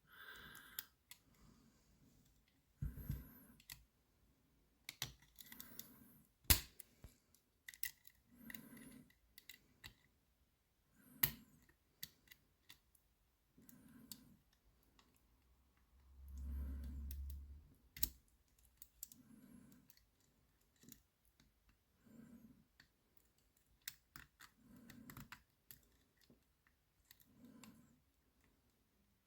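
Faint, irregular metallic clicks and light scraping from a lock pick and tensioner working the levers inside a Lowe & Fletcher eight-lever double-bitted safe lock, the levers being nudged one at a time, with a few sharper clicks among them.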